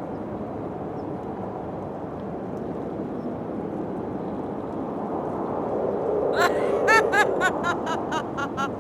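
Wind blowing steadily. About six and a half seconds in, a rapid run of short, high-pitched calls comes in, about four or five a second.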